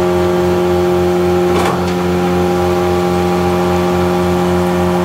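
John Deere 3350 tractor running steadily at working speed, driving a PTO forage chopper, giving a constant machine hum with an even low pulsing. A short burst of noise comes about a second and a half in.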